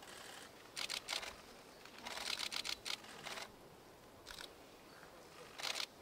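Camera shutter firing in short bursts: single clicks and pairs, with a fast run of several frames about two seconds in and another burst near the end.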